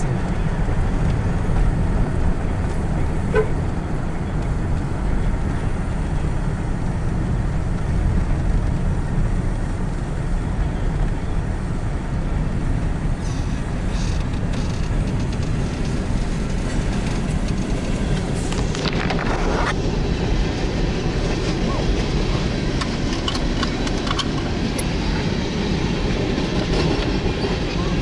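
Steady low rumble of road noise inside a moving car, mixed with a freight train rolling over a grade crossing ahead.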